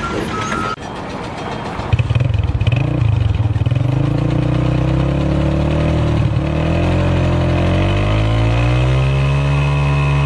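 A motor engine running loudly. It comes in strongly about two seconds in, its pitch wavers, climbs over a few seconds and then holds steady.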